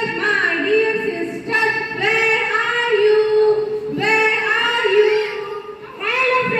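A woman singing unaccompanied, in about three long, held phrases.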